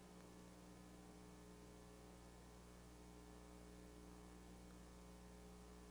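Near silence: a faint steady electrical hum with light hiss in the recording.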